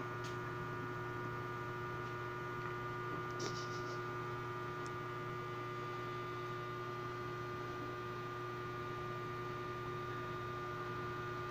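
Steady electrical hum made of several constant tones, with a couple of faint clicks about three and a half seconds in.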